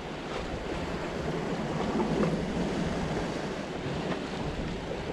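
Steady wind and sea noise: wind buffeting the camera microphone over water washing against the rocks, with a few faint ticks.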